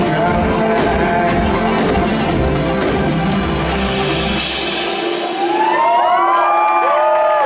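Live band with drum kit, bass, guitar and keyboards playing the last bars of a song, the bass and drums cutting off about five seconds in. The audience then starts cheering, with shouts and whistles.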